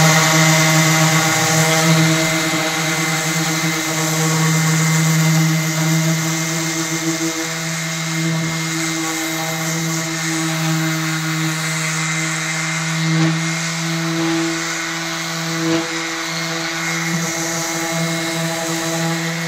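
Electric orbital sander running at a steady speed, its pad sanding a fibreglass skateboard deck: a steady motor hum with an abrasive hiss.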